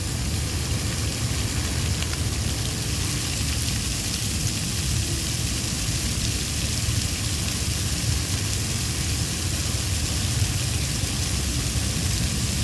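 Water jets of a large illuminated fountain spraying high and splashing back down into the pool: a steady hiss of falling water over a low rumble.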